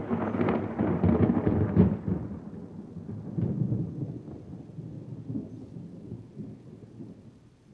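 Thunder rumbling, loudest in the first two seconds and then rolling away until it has almost faded out near the end.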